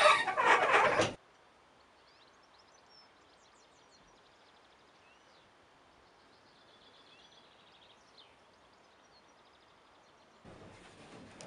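Wooden windmill machinery creaking loudly for about the first second, then faint birdsong over quiet open air; about ten seconds in, the creaking machinery returns, quieter.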